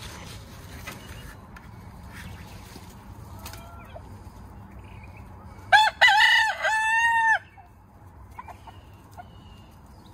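A rooster crows once, about six seconds in: a loud call of several short notes ending in a longer held one. Fainter clucks from the flock come before and after.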